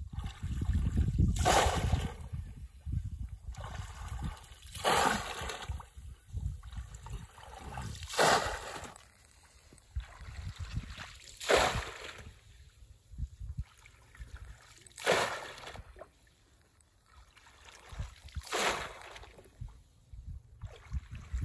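Pond water splashing and sloshing as a man wades waist-deep and churns the water with his hands, with a sharper splash about every three to four seconds.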